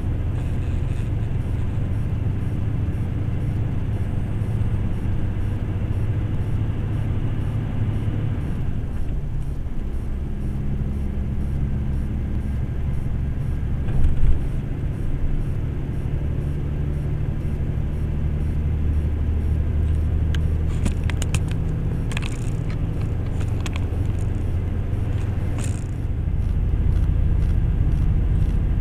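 Truck's diesel engine and road noise heard from inside the cab: a steady low drone whose pitch shifts a few times, with a brief thump about fourteen seconds in, a run of light clicks and rattles after twenty seconds, and a louder low rumble near the end.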